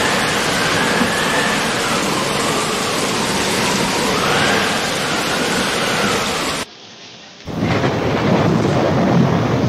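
Storm of wind and rain: a dense, steady rush of rain and gusting wind on the phone microphone, with a faint whistle rising and falling behind it. The sound cuts out abruptly for under a second about two-thirds of the way in, then comes back with more low rumble.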